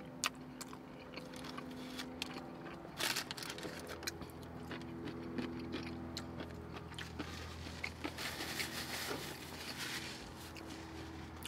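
Close-miked chewing of a mouthful of toasted sub sandwich, with scattered wet mouth clicks and smacks over a low steady hum. A brief paper-napkin rustle near the end.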